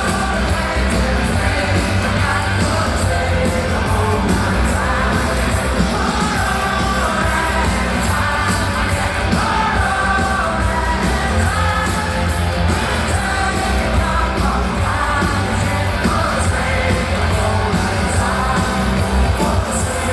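Loud pop music with a singing voice over a steady heavy bass.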